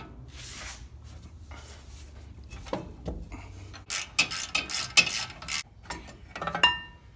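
Ratcheting wrench clicking quickly as the bolts holding the caliper mounting bracket of a pickup's rear disc brake are loosened, with a metallic clink and a short ring near the end.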